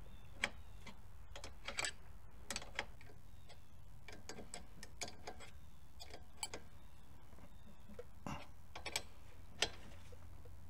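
Hand ratchet clicking in short, scattered runs while tightening rear brake caliper mounting bolts, with a wrench holding the caliper slide pin from turning.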